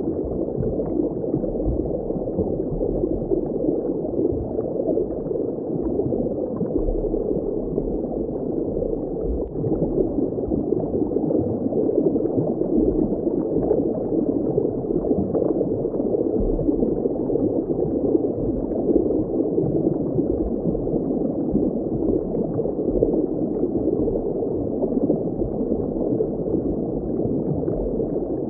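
Steady, muffled underwater water ambience: a continuous deep wash of moving water with no high sounds in it.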